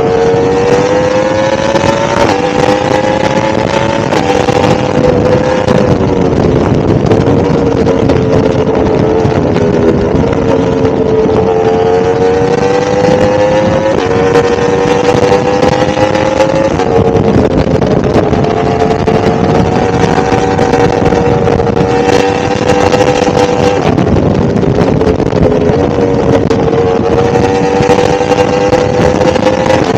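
1000cc motorcycle engine under way at cruising speed. Its note drifts gently up and down with the throttle and steps suddenly in pitch a few times, around 2 s in and again near the middle.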